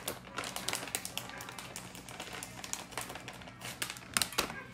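Plastic bag of almonds crinkling as it is handled, with many quick irregular clicks and crackles.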